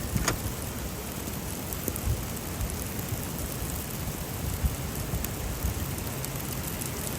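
Strong blizzard wind blowing in gusts, buffeting the microphone, with scattered small ticks.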